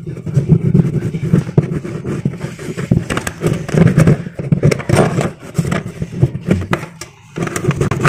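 Hand rubbing and scraping at the plastic rim of a washing machine tub's drain opening: an irregular rasping with many sharp clicks. The surface is being cleaned so the new buffer can seal without leaking.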